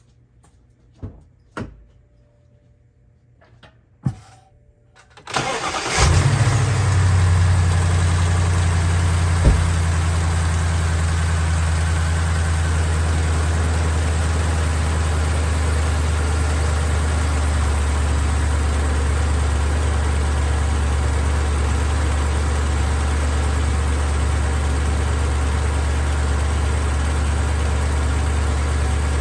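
A few clicks, then the BMW X5 E70's 4.8-litre V8 starts about five seconds in and settles into a steady idle, with one short knock soon after. The accessory belt is off, and the front-end rattle from the water pump's worn bearing is gone: the noise was the pump, not the engine.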